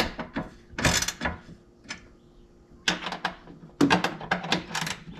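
Hand ratchet clicking in short bursts, with pauses between strokes, as the bolts of a roof-rack bracket are snugged up.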